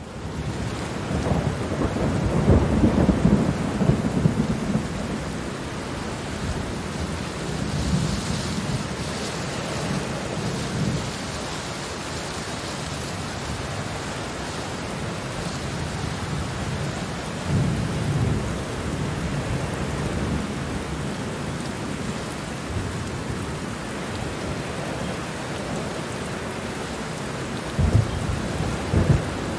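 Steady rain with low rolling rumbles of thunder that swell and fade several times, loudest a few seconds in.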